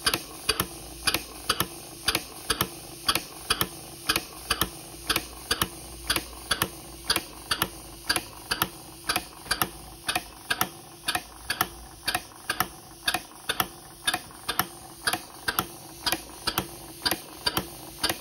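Scratch-built model mill steam engine running on compressed air, its snap-action poppet valves clicking sharply and evenly, about two to three clicks a second, over a steady hiss.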